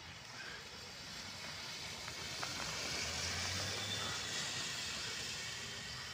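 Solaris Urbino city bus driving past close by on a wet, slushy road. The hiss of its tyres and its engine grow louder to a peak about three to four seconds in, then ease as it pulls away.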